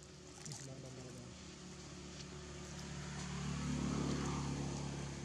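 A motor vehicle engine passing, its steady hum growing louder to a peak about four seconds in and then easing off.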